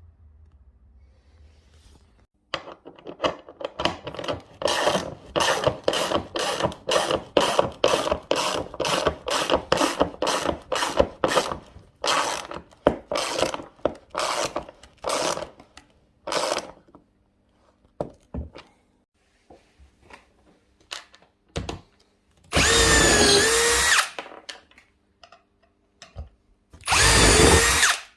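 Power drill work: a long run of short bursts, about two a second, then two longer runs near the end where the motor's pitch dips and recovers under load, as when driving screws.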